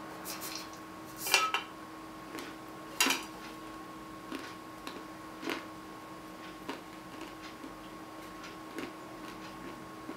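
Salted peanuts rattling in a small can as it is tipped up to the mouth, with two louder clatters in the first three seconds. Then come faint crunches about every half second as a mouthful of peanuts is chewed.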